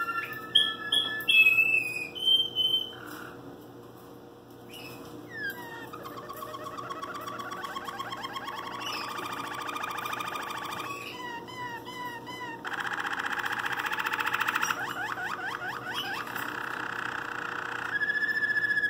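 Waterslager canary singing a long, varied song: clear whistled notes at first, then long rapid trills and rolls with quick falling sweeps, continuing without a break.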